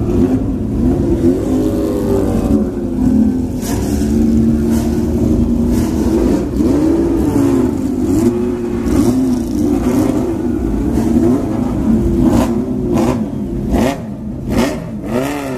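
Historic racing car engine being blipped, its pitch rising and falling again and again over a steady engine drone.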